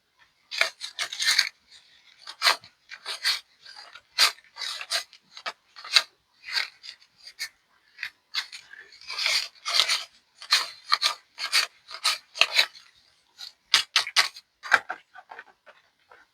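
Paper rustling and crinkling as cash is handled, in short irregular scrapes about one or two a second.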